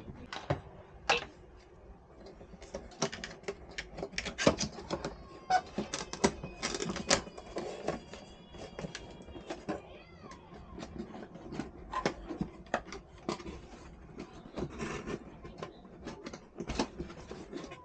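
Irregular sharp clicks, taps and light clatter of computer hardware and tools being handled during a CPU cooler swap. A few faint high-pitched calls with a gliding tone come near the middle.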